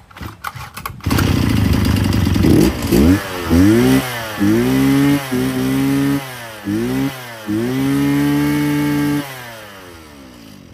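Mitsubishi TL52 brush cutter's 52cc two-stroke engine catching about a second in. It is then revved in a series of short blips, held high for over a second, and dropped back to a quieter idle near the end.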